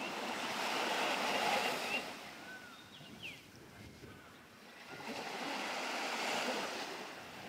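Small sea waves breaking and washing up on a sandy beach, swelling twice: over the first two seconds and again from about five to seven seconds in.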